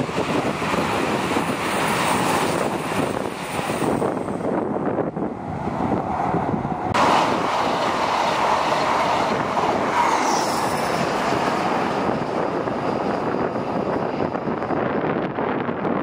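East Midlands Trains Class 222 Meridian diesel multiple unit passing at speed and running away down the line. The sound is a steady rush of wheels on the rails and engine noise, and it changes abruptly about seven seconds in.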